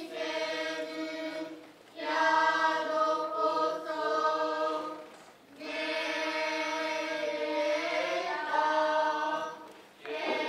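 Noh chanting (utai) by a chorus of young voices, sung in long drawn-out phrases with short breaks for breath about 2 seconds in, around the middle and near the end.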